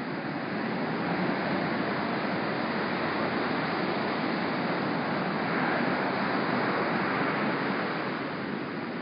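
Small, choppy wind-swell surf breaking and washing onto the beach, a steady rush that swells about a second in and again around six seconds, then eases near the end.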